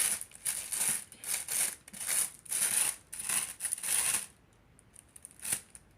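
Packaging crinkling and rustling in a run of short bursts as it is handled, stopping about four seconds in; a single sharp click follows near the end.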